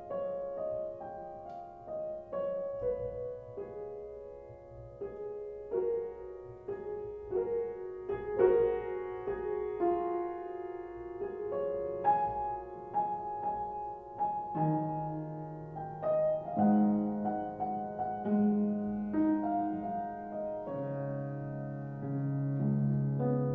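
Soft piano music of single notes and chords. Lower bass notes join about halfway through.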